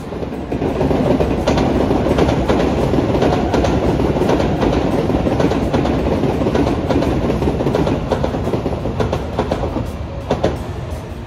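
A train running along the track, its wheels clacking over rail joints in irregular clicks. It swells in about half a second in and eases off near the end.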